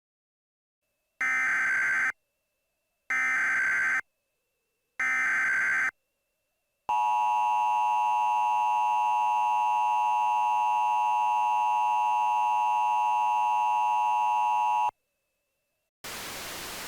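Emergency Alert System tones starting a new alert: three one-second warbling SAME digital header bursts about two seconds apart, then the steady two-tone EAS attention signal held for about eight seconds. A hiss of static comes in just before the end.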